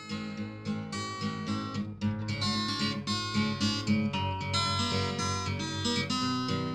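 Background music: acoustic guitar being plucked and strummed in a steady rhythm.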